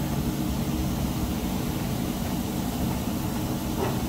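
A train running, a steady rumble with a low hum.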